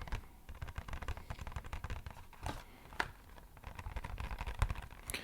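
Rapid, dense tapping on an empty box, a pattering run of small taps with a few harder strikes mixed in that sounds like rain.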